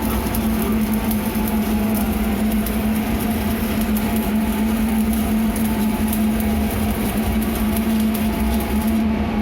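Steady machine hum at one low pitch under a broad noisy background, with an irregular fine crackle high above it.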